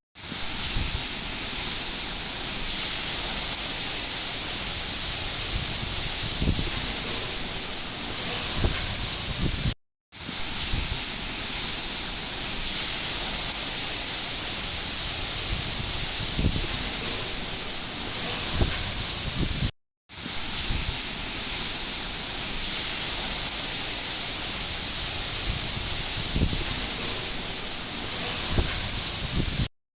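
Steady hiss of heavy rain with a few soft low thumps. The sound is a ten-second loop that cuts out for a split second each time it restarts, three times.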